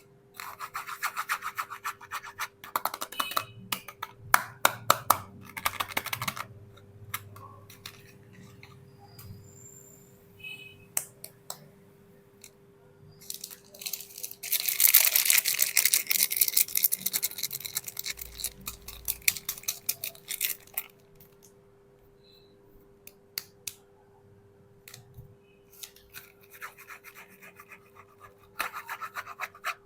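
Soap packaging being handled and unwrapped: bursts of crinkling and scratching, the longest and loudest about halfway through, over a faint steady hum.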